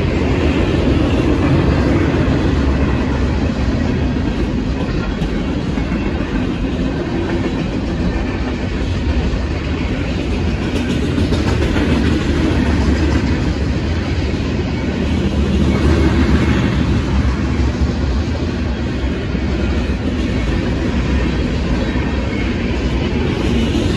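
Freight cars of a Union Pacific mixed freight train (covered hoppers and tank cars) rolling past at speed: a steady, loud low rumble of steel wheels on rail.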